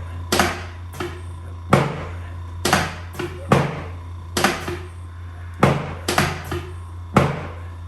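About a dozen sharp knocks, coming irregularly about once a second, from a chiropractic adjustment being delivered to the sacrum and tailbone.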